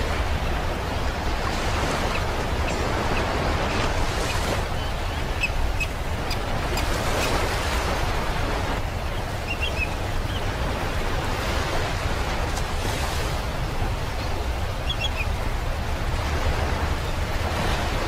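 Ocean surf washing onto a beach in a steady hiss, with a few short, faint seagull calls scattered through it.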